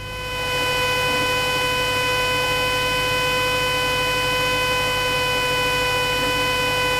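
Cessna 172S stall warning horn sounding as one steady buzzing tone through the landing flare, the sign that the wing is close to the stall just before touchdown.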